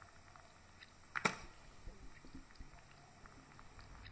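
Grapefruit flesh squeezed by hand: a wet squelch about a second in, followed by small wet clicks of crushed pulp and juice.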